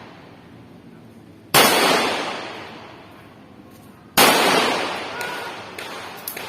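Two shots from a 9mm pistol, about two and a half seconds apart, each ringing out in a long echoing decay, followed by a few light clicks near the end.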